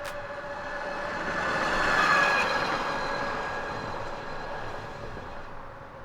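Async A1 Pro electric bike being ridden: wind and road noise swelling to a peak about two seconds in and then fading, with a faint steady whine running through it.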